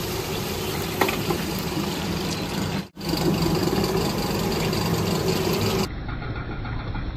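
Motorized potato-chip slicing machine running with a steady hum as it drops slices into a wok of hot oil, over the hiss of the oil sizzling. The sound breaks off for an instant about three seconds in and changes near the end.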